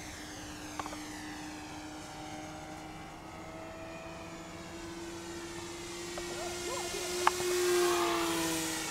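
Electric motor and propeller of a Flyzone Switch RC floatplane running steadily in flight. The whine grows louder and rises slightly in pitch as the plane makes a close, low pass near the end, then starts to drop away. A sharp click comes just before the pass.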